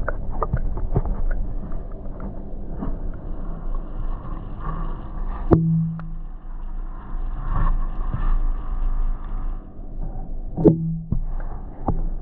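Muffled underwater noise picked up by a camera submerged in an aquarium: water movement and handling noise with scattered clicks. Two sharper knocks come about five and a half and ten and a half seconds in.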